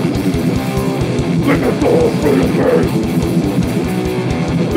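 Heavy metal band playing live: distorted electric guitar riffing over a drum kit with a fast, steady kick-drum beat.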